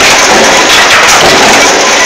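Mechanical power press running a progressive stamping die on sheet steel: a very loud, dense clatter of die strikes and machinery.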